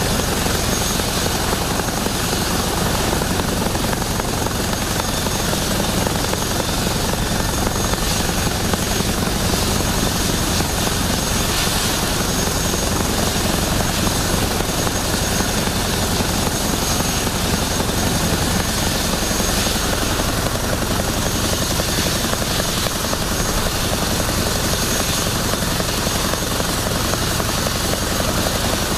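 Boeing CH-47 Chinook's twin Lycoming T55 turboshaft engines and tandem rotors running steadily, a constant high turbine whine over a low rotor throb.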